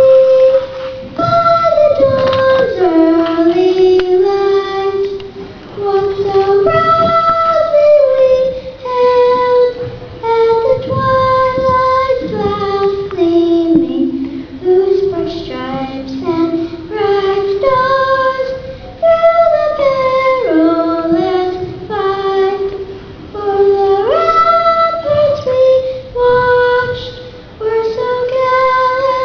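A young girl singing the national anthem solo into a handheld microphone: one unaccompanied child's voice moving through the melody in held notes.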